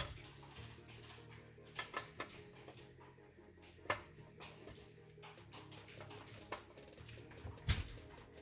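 Scattered sharp clicks and knocks of a screwdriver on screws and of a sheet-metal hi-fi chassis being handled, about six in all, with a heavier knock near the end. Faint steady background music runs underneath.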